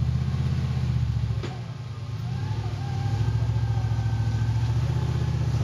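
Rock-crawling buggy's engine running hard under load as it climbs a boulder, easing off briefly about a second and a half in, then building again.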